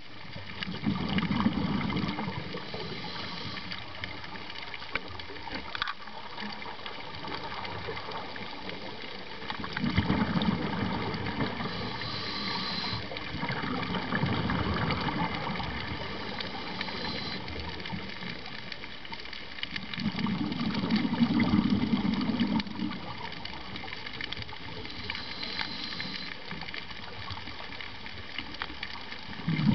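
A scuba diver's breathing through a regulator: a loud rush of exhaled bubbles about every ten seconds, each lasting two or three seconds, with short higher hisses of inhaling in between. Under it runs a steady underwater hiss with faint scattered clicks.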